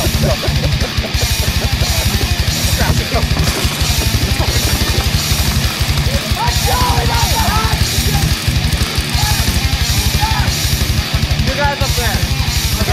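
Heavy rock soundtrack music with a fast, pounding drum beat and electric guitar.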